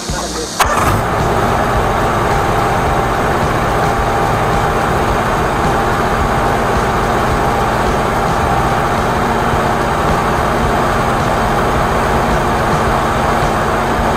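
An engine-driven machine starts up suddenly about half a second in and then runs steadily at a constant speed.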